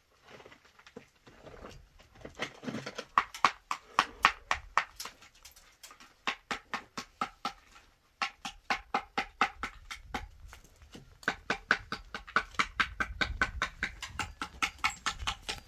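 A mason's metal tool rapidly and repeatedly striking a concrete block, about four sharp knocks a second with a short ringing note on each. The knocks come in runs with brief pauses, as the block is tapped and trimmed on top of the wall.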